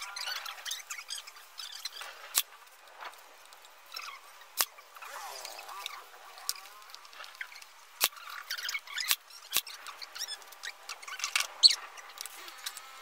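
Pine table parts being handled and clamped by hand: scattered sharp clicks and knocks, about five, with short squeaks of wood and clamp rubbing, one near the middle and one near the end.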